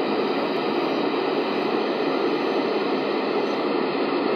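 Steady hiss of a Malahit DSP2 SDR receiver's speaker in FM mode on the 70 cm band, its squelch open with no signal coming in.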